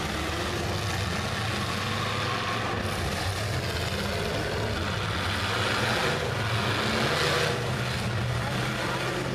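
Demolition derby cars' engines running and idling, a steady drone that swells briefly about six to seven seconds in.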